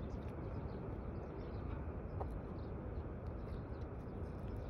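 Steady low outdoor rumble with a few faint scattered ticks.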